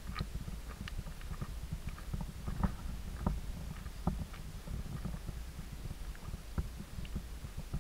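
Footsteps crunching on dry leaf litter and loose stones of a steep forest path, at an uneven walking pace, over a steady low rumble on the microphone from the handheld camera.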